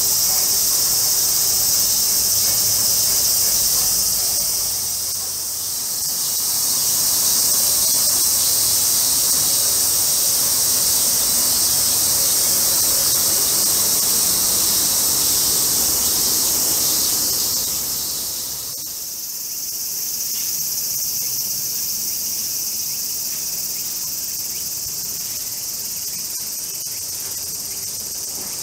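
A steady, high-pitched chorus of summer cicadas shrilling. It dips briefly about five seconds in, and becomes somewhat quieter about nineteen seconds in.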